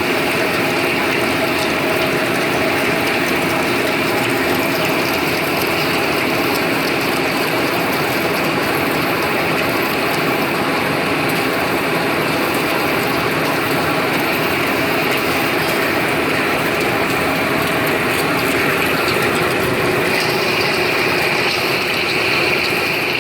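Large metal lathe running steadily through a trepanning cut, a continuous mechanical whir with steady gear tones.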